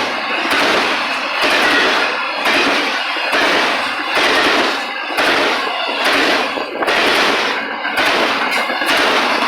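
Freight train cars rolling past close by: a loud, rough clatter of wheels and rushing air that comes in pulses about every half second to a second.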